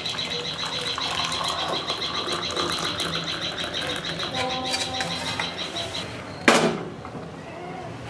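Milky tea poured from a pan through a strainer into a ceramic mug, under a steady high-pitched pulsing trill that stops about six seconds in. A single sharp clank comes about six and a half seconds in.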